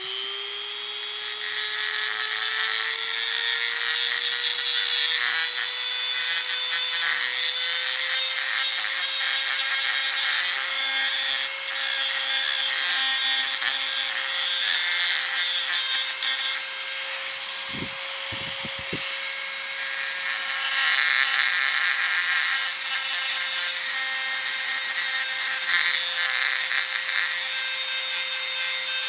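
Dremel rotary tool running at high speed with a grinding stone bit: a steady motor whine over the rasp of the stone grinding along the cut edge of a metal spoon. A little past halfway the grinding eases for a few seconds, then grows louder again.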